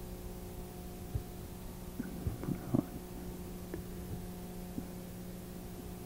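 Small light clicks and taps of chain nose pliers gripping and bending fine jewelry wire, a handful of them clustered around two to three seconds in, over a steady low hum.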